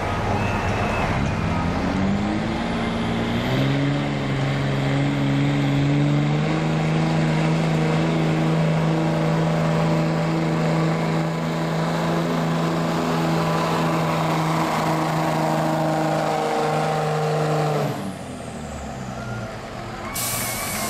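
Dodge Ram's Cummins diesel engine under full throttle pulling a weight sled: the revs climb over the first few seconds, then hold at a steady high pitch. Near the end the engine drops off sharply as the pull ends, and a brief loud hiss follows.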